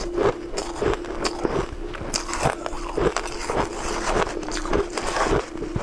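Shaved ice crunching between the teeth as it is chewed: a steady run of short, crisp crunches, about three or four a second.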